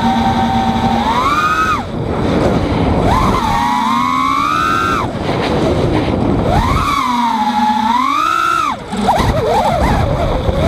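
EMAX 2205 2300kv brushless motors on a 5-inch racing quadcopter whining in flight, the pitch rising and falling with throttle, with wind noise beneath. About nine seconds in the throttle drops briefly and then comes back with a rapid, wavering chirp, which the owner wonders is propwash oscillation from his tune.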